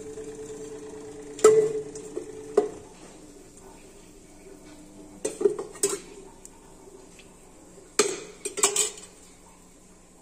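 A steel spoon clinking and scraping against a steel oil pot and an iron kadai while cooking oil is ladled into the kadai. The sharp metallic clinks come in several short clusters.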